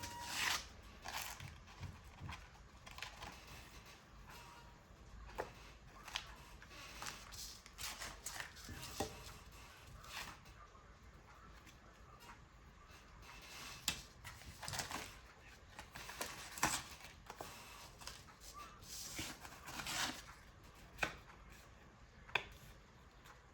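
Paper being handled and worked by hand: scattered light taps, clicks and short rustles at an irregular pace.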